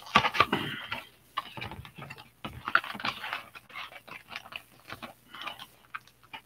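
Cardboard trading-card hobby box being opened by hand: a run of short, irregular rustles and scrapes as the lid and the packs inside are handled.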